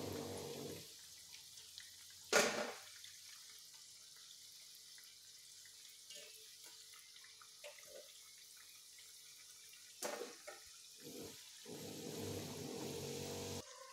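Banana-flower lentil fritters (garelu) deep-frying in hot oil: a steady sizzling hiss, with a metal wire skimmer knocking against the pan about two seconds in and more lightly about ten seconds in.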